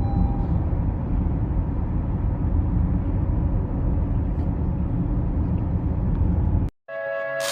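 Steady road and engine noise of a car driving. It cuts off sharply near the end, and electronic music starts.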